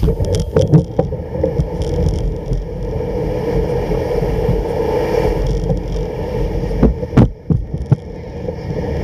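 Runners of a home-made kick sled sliding steadily over snow, with sharp knocks and rattles of the sled frame near the start and again around seven seconds in.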